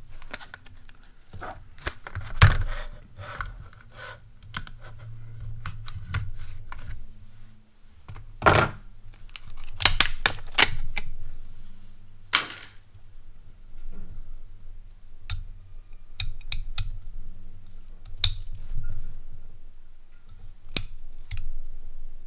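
8-inch slip joint pliers being taken out of their plastic-and-card retail packaging and handled: an irregular run of clicks, crinkles and knocks, with a few louder snaps.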